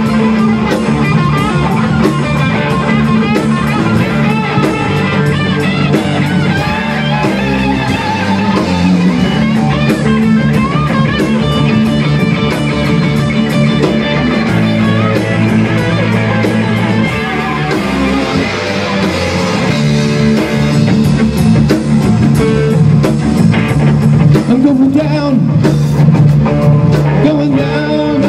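Rock band playing live: two electric guitars over a Tama drum kit, with a voice singing near the end.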